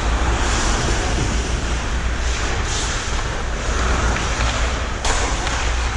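Ice hockey rink sound during play: skate blades scraping and carving on the ice over a steady low rumble, with a sharp knock about five seconds in.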